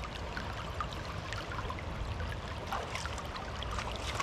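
River water running and rippling steadily, with a low rumble underneath and scattered small ticks.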